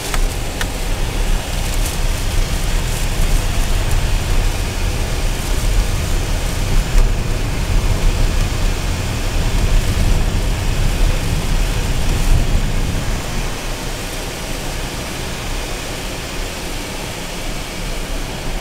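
Steady road and engine noise inside the cabin of a 2015 Renault Duster on the move, a low rumble with an even hiss above it, easing a little about two-thirds of the way through.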